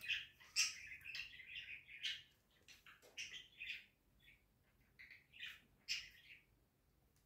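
Small birds chirping in quick, irregular calls, thinning out and stopping near the end.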